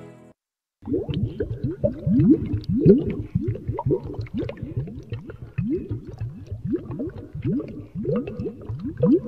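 Bubbling, gurgling liquid sound: many short rising blips, several a second, starting about a second in just after the music fades out.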